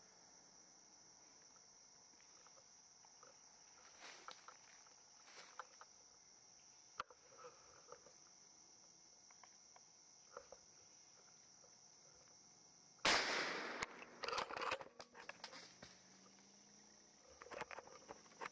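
A single gunshot about two-thirds of the way in, followed by a couple of seconds of crackling rustle in the leaves and branches. A steady high-pitched insect drone runs underneath, with a few faint clicks and rustles earlier and more crackling near the end.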